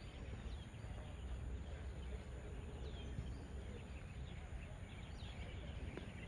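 Outdoor ambience: a steady low wind rumble on the microphone, with faint, scattered bird chirps.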